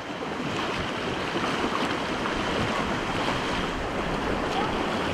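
Rushing whitewater of a river rapid around an inflatable raft, a steady roar of water, with paddles dipping and splashing as the crew paddles.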